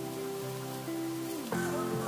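Background instrumental music: sustained chords that change twice.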